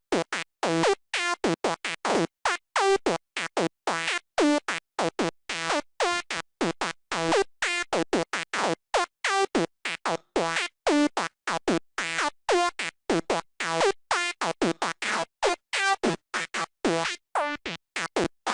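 Sylenth1 software synth playing a high-pitched psytrance night full-on lead: a fast looping melody of short, separated notes, each with a quick pitch sweep at its start from the pitch envelope.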